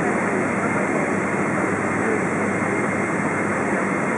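Steady jet-engine and cabin noise inside a Boeing 777-200, heard over the wing's General Electric GE90 engine as the aircraft rolls along the ground, with no spool-up.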